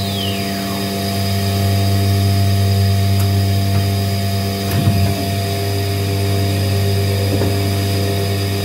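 CNC router running with a steady low hum and several steady tones; in the first second a whine falls in pitch and fades out as the spindle winds down. A brief louder rumble comes about five seconds in.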